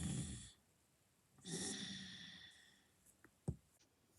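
Snoring: two snores, one right at the start and a longer one about a second and a half in, then a single short knock near the end.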